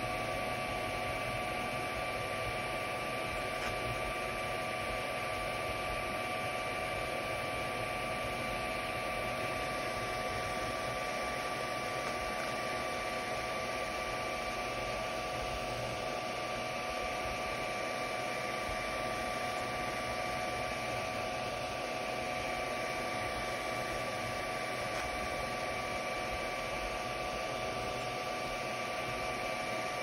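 FDM 3D printer running mid-print, its cooling fans giving a steady whirring hiss with a few constant whining tones over it.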